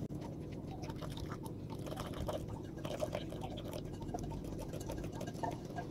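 Wire whisk stirring a dry flour and brown sugar mix in a glass bowl, with many small, quick clicks and scrapes of the tines against the glass, while water is slowly poured in.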